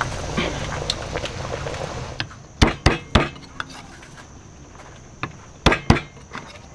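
Kitchen knife chopping on a thick wooden chopping board: two quick runs of three or four sharp knocks, about three seconds apart.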